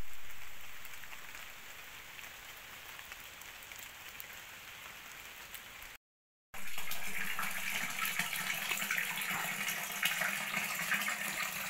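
A faint steady hiss for the first half. Then, after a short break, a thin stream of water pours from the pipe of a stone wall fountain and splashes steadily into its stone basin, louder than what came before.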